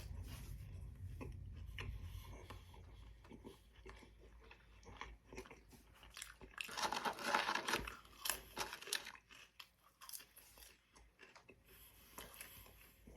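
A man chewing and crunching fast food, with wet mouth clicks between bites. About seven seconds in comes a louder, denser stretch of crunching.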